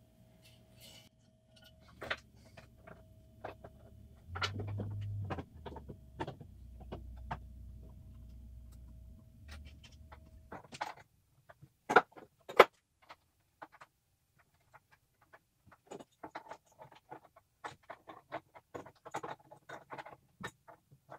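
Small metallic clicks and taps as brass transmission-cooler fittings are handled and threaded by hand into the radiator's cooler ports, with two sharper clacks close together near the middle. A low steady hum underlies the first half and then stops abruptly.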